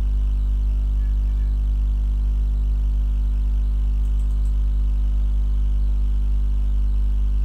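Steady low electrical hum with a stack of even overtones at an unchanging level, with a few faint ticks about four seconds in.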